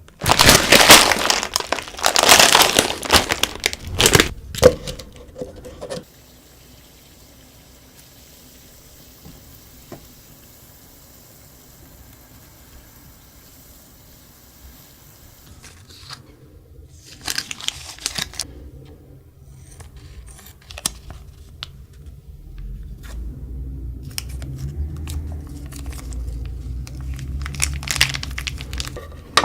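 Plastic instant-noodle packaging crinkling and tearing loudly for about the first six seconds, then quiet, with scattered clicks and rustles of handling and a low rumble in the last several seconds.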